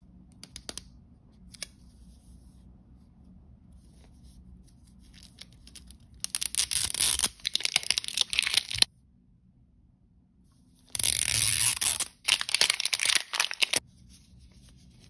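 Glossy plastic film wrapper being peeled and torn off an L.O.L. Surprise blind ball, crinkling, in two loud bouts: one about six seconds in, lasting over two seconds, and one about eleven seconds in, lasting nearly three seconds. A few light clicks of handling come in the first two seconds.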